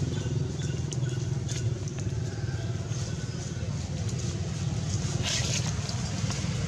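An engine running steadily, giving a continuous low hum.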